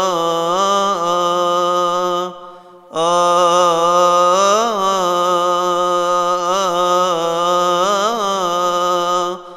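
A man chanting a Coptic Orthodox hymn solo, one long melismatic line of held notes with small turns and wavers. He pauses for a breath about two and a half seconds in.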